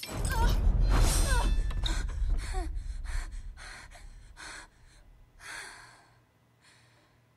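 A sudden loud hit with a deep rumble, then a run of short, sharp gasping breaths that grow fainter and farther apart.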